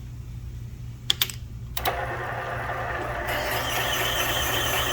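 Two sharp clicks about a second in, then the spindle of a cylinder-head seat-and-guide machining machine starts and runs steadily, with a higher hiss joining it a little later. This is the machine being set going to cut a chamfer on top of a valve guide.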